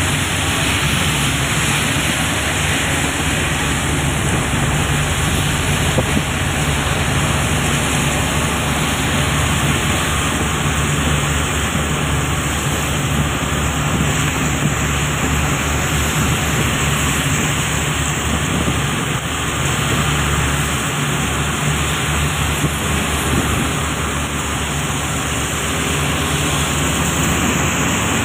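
Steady engine drone and road noise heard from inside a moving vehicle, with tyres hissing on a wet road.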